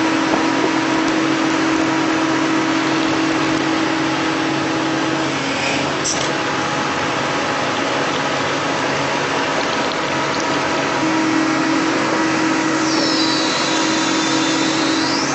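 Doosan DX225LC excavator running under hydraulic load as it drives an SW1100 Super Wedge rock splitter into a drilled hole to crack the rock. A steady whine drops out about five seconds in and returns near the end.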